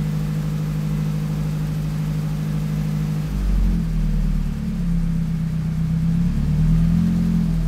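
Turbocharged Honda Civic VTi engine running at a steady speed on the dyno. Its note changes and wavers slightly about three seconds in.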